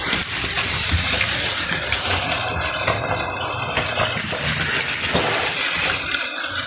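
Battery-powered Plarail toy train running on plastic track: a steady motor whir with a continuous clatter of small clicks from the wheels and track joints.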